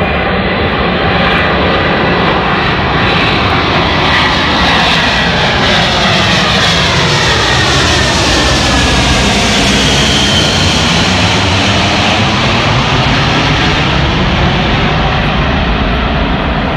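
Antonov An-225 Mriya's six turbofan engines, loud and steady as the aircraft flies low overhead, with a sweeping whoosh as it passes about halfway through.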